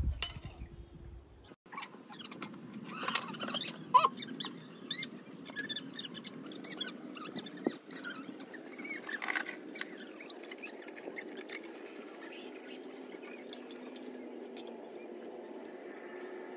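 Scissors snipping through washed ficus roots during root pruning: a quick run of sharp snips mixed with short squeaks, thinning out after about ten seconds.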